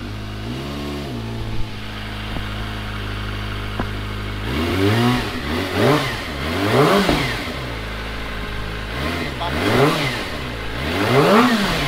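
Kawasaki ZX-25R's 250 cc inline-four revved through an Akrapovic straight-through full exhaust with the dB killer in: a steady idle broken by quick throttle blips, one small one about a second in, then a cluster of three and, near the end, three more, each a sharp rise and fall in pitch. The exhaust is loud even with the dB killer, and the owner finds the idle a little lean since the catalytic converter was deleted.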